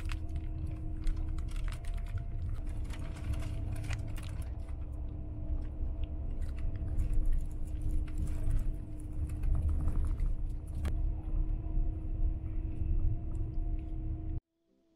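Cabin noise of a moving bus: a steady low engine and road rumble with a constant hum and many small clicks and rattles over it. It cuts off suddenly near the end.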